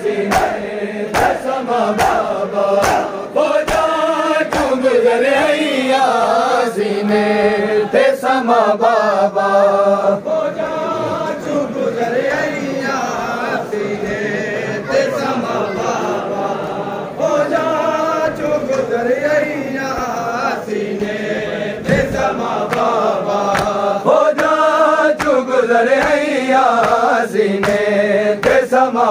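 A group of men chanting a noha lament in unison, the voices rising and falling with the verse. Over it come regular slaps of open hands on bare chests as mourners beat their chests in time (matam).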